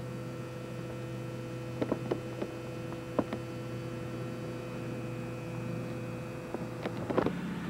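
Steady electrical hum, with a few light clicks about two and three seconds in and a short cluster of clicks near the end, where the hum changes pitch.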